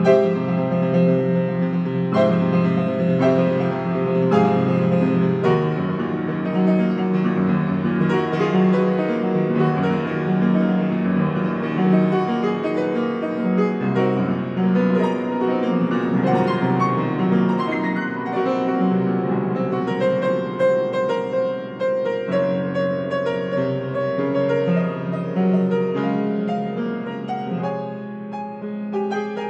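Grand piano played solo as free improvisation: continuous, dense chords and melody in the low and middle registers, with no pauses.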